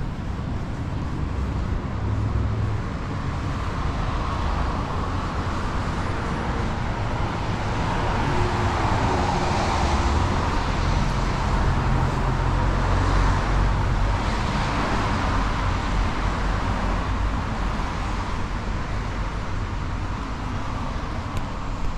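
City street traffic on wet pavement: a steady low engine rumble with tyre hiss, swelling as a vehicle passes close about halfway through and then fading.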